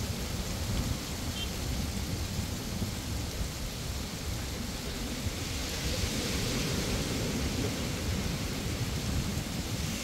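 Wind blowing across the microphone in a steady, deep rumble, with ocean surf washing on the beach; the hiss of a breaking wave swells about halfway through.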